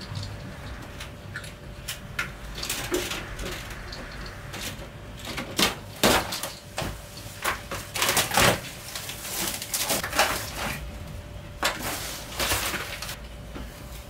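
Irregular rattling, scraping and knocking as a wire-mesh panel and covering are taken down from a window and the curtains pulled aside; the loudest knocks come about halfway through and again a couple of seconds later. A faint steady hum runs underneath.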